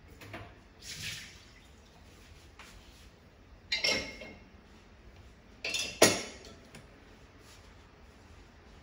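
Glasses being set into a dishwasher's wire rack: a few sharp clinks and knocks of glass on the rack, the loudest about six seconds in.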